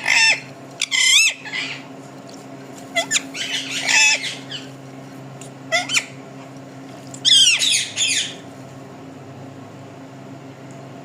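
Parrot squawking: about five bouts of loud calls in the first eight seconds, over a steady low hum.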